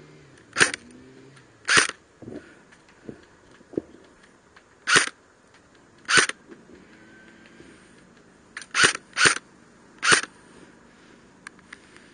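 Airsoft SCAR rifle firing aimed single shots: seven sharp cracks, two early, two in the middle and three close together near the end.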